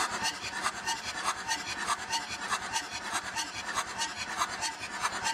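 A 2.5 TDI V6 diesel engine being cranked on its starter motor with all glow plugs removed, spinning freely in a fast, even rasping rhythm during a compression test.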